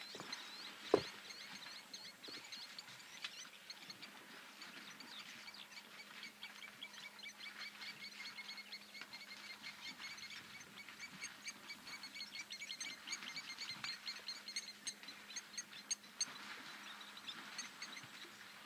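Faint outdoor ambience of fast, repeated high chirping calls from small wild creatures, thickest in the middle, with a single sharp knock about a second in.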